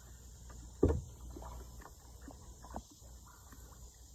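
Steady insect chirring outdoors, with one dull thump about a second in and a few faint clicks.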